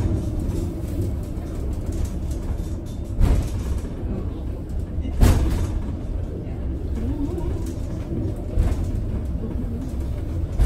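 Nazaré funicular car running along its track, heard from inside the cabin: a steady low rumble with three louder knocks, about three, five and eight and a half seconds in.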